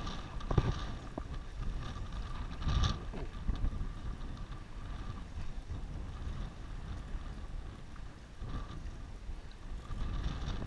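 Wind rumbling on the microphone over water noise, with a couple of short handling knocks, one about half a second in and one about three seconds in.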